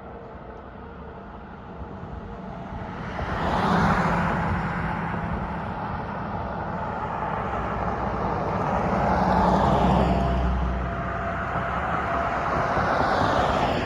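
Road traffic: cars passing one after another, their tyre and engine noise swelling and fading about three times.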